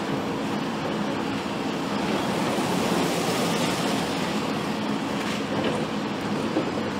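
A steady mechanical drone of a running engine over an even noisy wash, with no sharp impacts.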